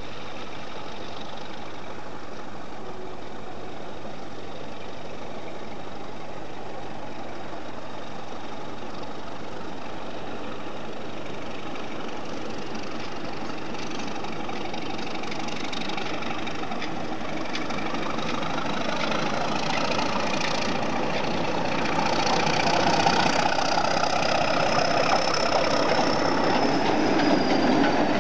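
Class 31 diesel locomotive with its English Electric engine running as it hauls a train of MGR coal hopper wagons slowly toward and past, growing steadily louder as it draws near. A thin high whine rises and falls above it near the end.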